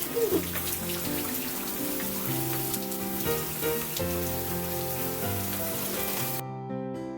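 Steady rain falling, with background piano music playing over it. The rain cuts off suddenly near the end, leaving only the music.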